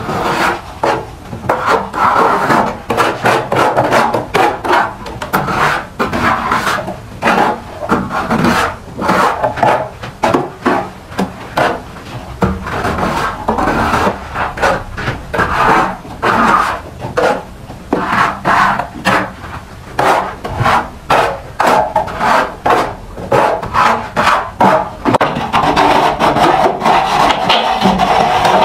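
Hand plastering tool scraping over wet cement render on a brick wall, in quick repeated strokes as the plaster is worked smooth along the corner.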